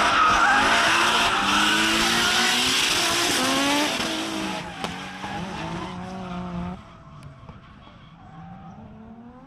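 Drift cars' engines revving up and down with tyres squealing as they slide, loudest over the first four seconds. The sound drops off sharply about seven seconds in, leaving a fainter engine note.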